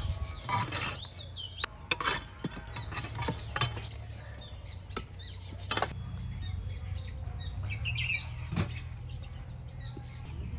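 Birds chirping, with scattered clinks and scrapes of a metal tool working at a clay oven, mostly in the first half.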